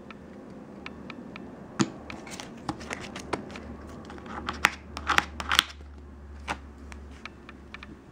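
Plastic gift card scraping nail polish across a metal nail-stamping plate: a run of short scrapes and clicks, busiest around five seconds in.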